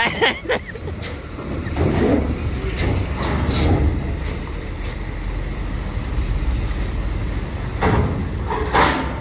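Diesel cargo truck engine running at low speed as the truck creeps up a steel ferry loading ramp, a steady low rumble. A few short hisses come about two, three and a half, and nine seconds in.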